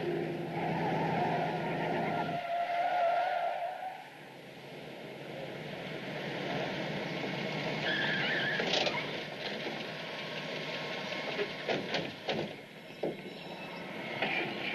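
A motor vehicle driving with tyre and road noise. A steady low engine hum stops a couple of seconds in, and a few short knocks come near the end.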